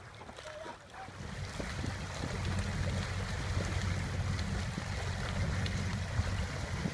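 Water lapping and splashing around a wooden rowing skiff under oars, with wind rumbling on the microphone that gets stronger about a second in.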